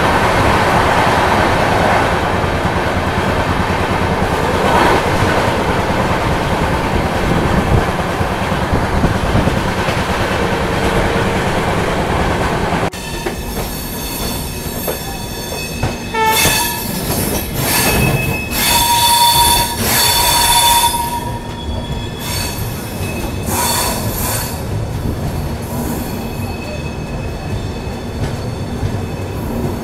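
Passenger train's wheels running on the track with a steady, loud rumble. About halfway through the sound changes abruptly and high steel-on-steel wheel squeals come and go for several seconds.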